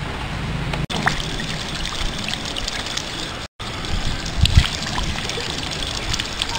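Water running from an outdoor tap and splashing as hands and face are washed under it, a steady trickle broken by a brief cut-out midway.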